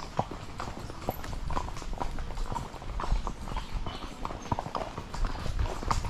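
Horses' hooves clopping on a dirt trail at a walk, an irregular run of several soft knocks a second from more than one horse.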